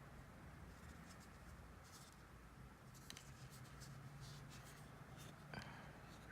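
Near silence with faint scratchy rustles of the watch's soft packaging cover being handled, a few short ones in the second half.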